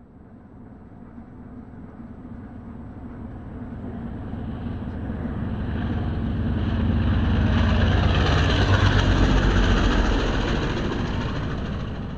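Single-engine floatplane flying low past, engine and propeller growing steadily louder as it approaches, loudest about eight to ten seconds in, then easing off slightly.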